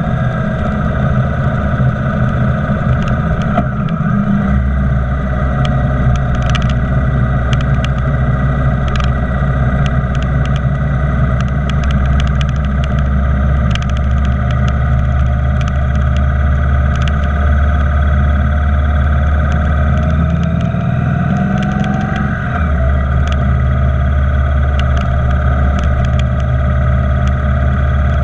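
Motorcycle engine running under way, with steady wind and road noise. The engine note shifts about four seconds in and rises briefly about three quarters of the way through.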